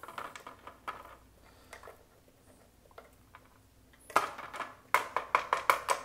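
Roomba i6+ dust bin handled with a few light clicks, then shaken out over a plastic cutting board from about four seconds in: a quick run of sharp rattling knocks as the bin is shaken and dry debris (candies, foil bits, carrot shavings, grit) falls onto the board.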